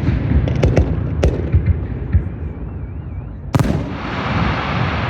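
Aerial fireworks shells bursting: a run of sharp bangs about a second in, then a loud burst about three and a half seconds in followed by a crackling hiss, over a low rumble of further bursts.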